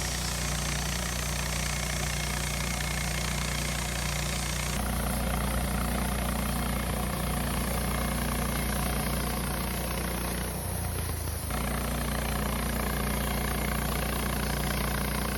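Wood-Mizer LT15 portable bandsaw sawmill running steadily, sawing a ponderosa pine log. There is a slight change in the sound about five seconds in and a brief dip at about ten and a half seconds.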